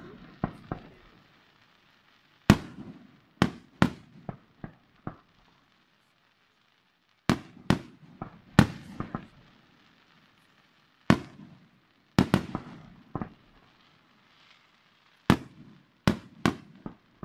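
Aerial fireworks shells bursting in groups of sharp bangs every few seconds, each group trailing off in echo.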